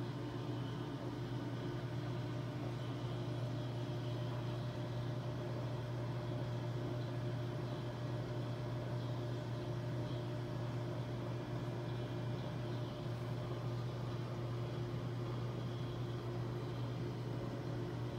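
Steady low electric hum with a light hiss from running reef-aquarium equipment such as the water pumps.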